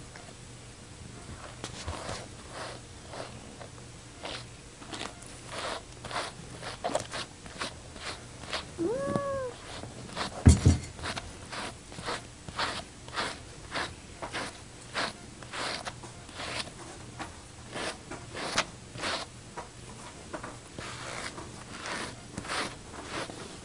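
Grooming brush stroking through a cat's fur, a short rasping stroke about twice a second. About nine seconds in the cat gives one short meow that rises and falls, followed at once by a loud thump.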